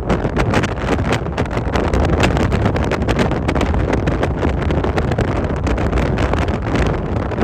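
Storm-force wind buffeting the microphone: a loud, continuous low rush broken by many quick gusts.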